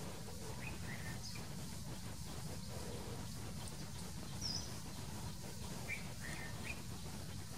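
Outdoor garden ambience: a steady low rumble with a few short, high bird chirps scattered through, the clearest about four and a half seconds in.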